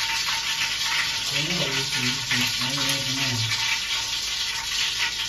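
Fingers rubbing wet chilli-spice paste into pieces of Indian halibut in a bowl, a soft wet squishing over a steady hiss, with a low murmured voice from about a second in to about halfway through.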